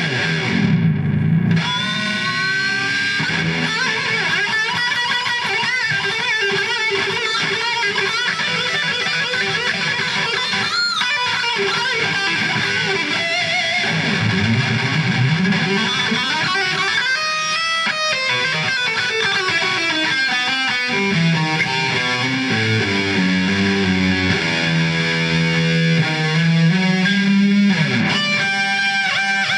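Electric guitar solo in a metal style: fast single-note runs with bends and vibrato, a stepped descending run about two-thirds of the way in, and sustained held notes near the end.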